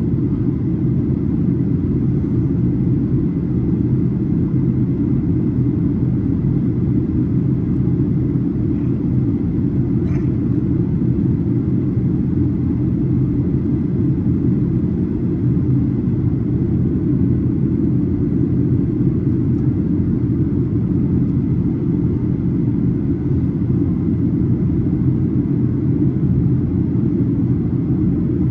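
Steady low rumble of a Boeing 737's engines and airflow, heard from inside the passenger cabin in flight.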